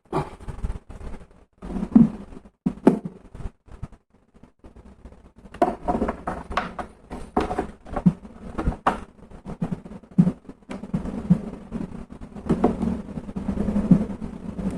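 Irregular clicks, taps and knocks of hands working a Dell Inspiron 3421 laptop's plastic case while its bottom cover is pressed back into place and fastened. A steady low rumble comes up in the last few seconds.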